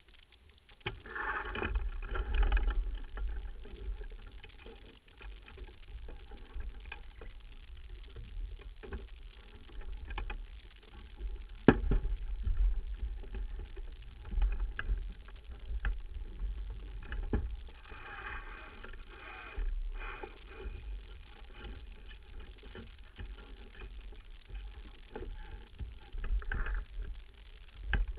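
Wind buffeting the microphone and water rushing past the hull of a sailboat under way, swelling louder a couple of times, with a few sharp knocks from the crew and gear on deck, the loudest about twelve seconds in.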